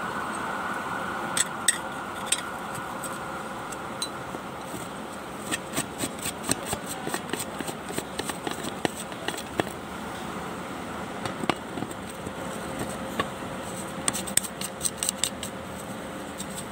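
Scattered small clicks and light taps, busiest about five to seven seconds in and again near the end, over a steady background hum.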